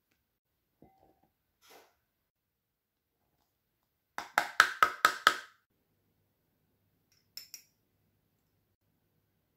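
A plastic measuring cup rapped about six times in quick succession against a glass mixing bowl to knock out the last of the flour, each knock ringing briefly. Two faint clicks follow near the end.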